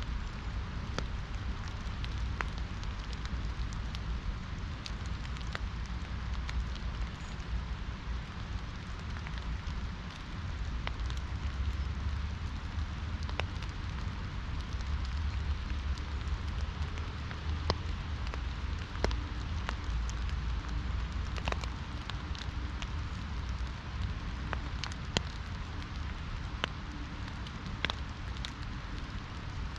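Steady rain falling, with many single drops striking sharply on an umbrella overhead, over a steady low rumble.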